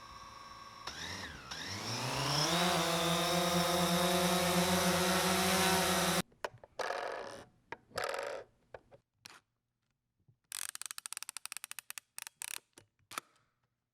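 DJI Phantom 4 quadcopter's four motors and propellers spinning up, rising in pitch to a steady, loud whining hum that cuts off suddenly about six seconds in. Then come scattered short clicks and rattles with silent gaps between them, including a quick run of rapid clicks.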